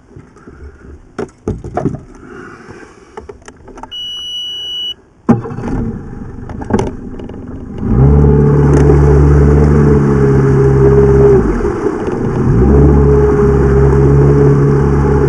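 Mercury outboard motor on an inflatable boat: a few clicks and knocks, a short beep about four seconds in, then the engine comes on abruptly a second later and idles. About eight seconds in it is throttled up and runs loud and steady, eases off briefly around twelve seconds, then picks up again as the boat gets under way.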